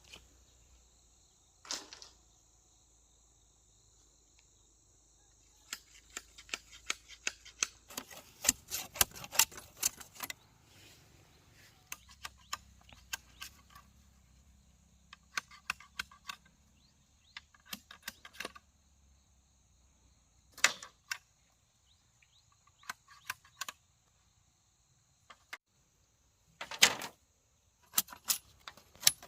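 Irregular clusters of sharp clicks and light knocks, as of small hard objects being handled or tapped, over a faint steady high-pitched drone.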